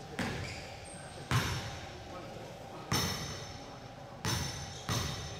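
A basketball bouncing on a gym floor: five separate bounces at uneven intervals, each ringing briefly in the hall.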